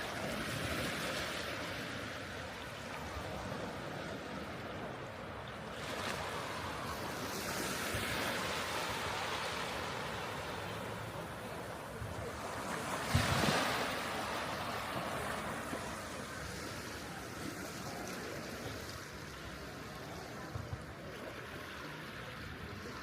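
Sea waves breaking and washing up the shore, the rush swelling and fading every six or seven seconds, with the loudest break about thirteen seconds in.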